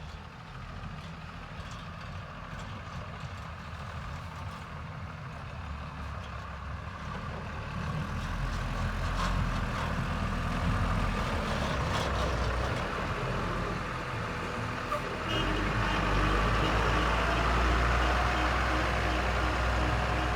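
Diesel engines of a backhoe loader and a tipper dump truck running, growing louder about eight seconds in. From about fifteen seconds in, a repeating beep sounds over the engines.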